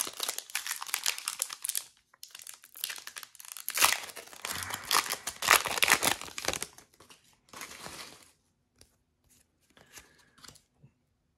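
Crinkly plastic wrapping being handled, in crackling stretches of a few seconds, followed by a few faint light clicks.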